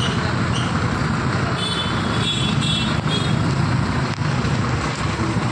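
A bus's engine running and road noise heard from inside the moving bus, steady throughout. A quick series of short high beeps sounds about one and a half to three seconds in.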